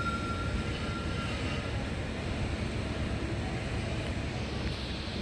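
Steady low rumble and hiss of railway-platform ambience beside a standing passenger train, with a faint high whine in the first second and a half.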